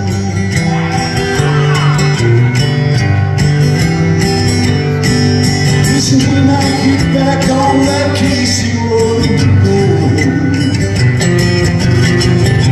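Live solo steel-string acoustic guitar being strummed and picked, with a man singing into the microphone at times, recorded loud and close on a phone in the audience.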